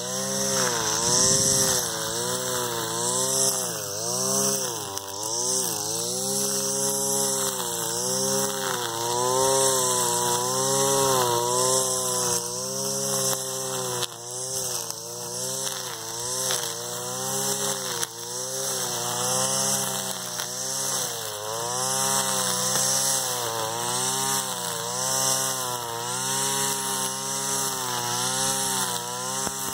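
Petrol brush cutter with a nylon line head cutting tall, thick grass. The engine runs hard, its pitch dipping and rising again every second or two as it cuts.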